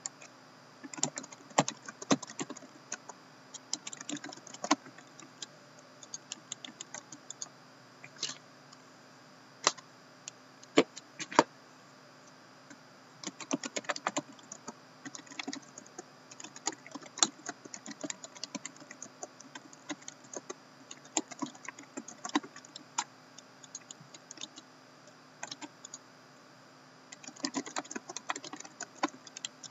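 Typing on a laptop keyboard: irregular runs of key clicks with short pauses between them, and a few louder single key taps partway through.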